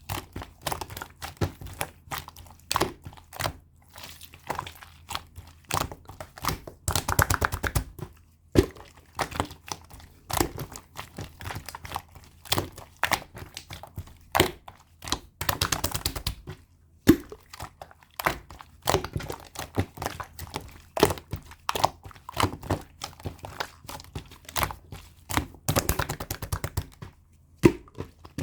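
White clay slime being squished and pressed by hand, giving sharp wet clicks and pops as air pockets burst. Three times the clicks run together into a fast crackle.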